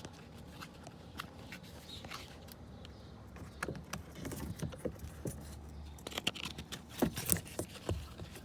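Small plastic clicks and rattles of a car door lock and window switch being handled and its wiring plug pushed back in, with a cluster of sharper clicks about seven seconds in.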